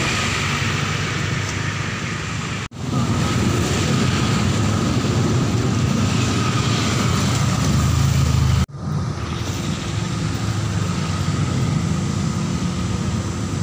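Street traffic: motorcycles and cars running on a town road, a steady rumble of engines and road noise. The sound drops out sharply twice, briefly, where the footage cuts.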